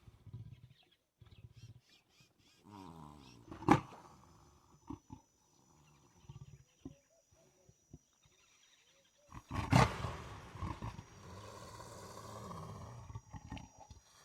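A string of separate animal roars and growls, one after another with short quiet gaps. A growl peaks sharply about four seconds in, and the loudest, a long roar, starts near ten seconds and trails off over about three seconds.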